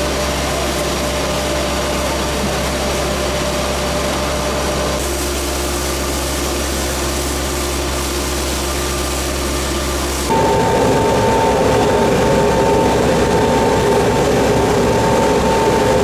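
A motor running steadily, its sound changing at cuts about five and ten seconds in. From about ten seconds on it is louder, with a steady whine on top.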